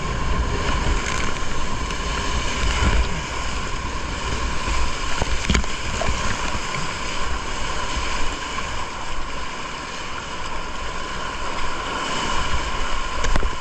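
Big-water whitewater rapids rushing around a kayak, with waves breaking over the bow and splashing. Water and wind buffet the deck-mounted action camera's microphone, adding a heavy low rumble and occasional sharp clicks.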